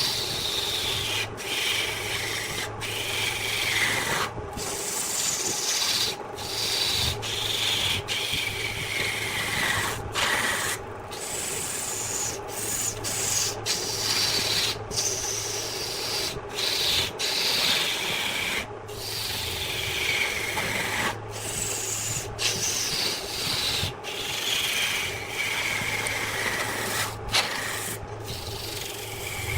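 Wood lathe running with a tool rubbing against the spinning wood: a hiss that falls in pitch over a couple of seconds and repeats, over the lathe's steady hum, broken by brief dropouts.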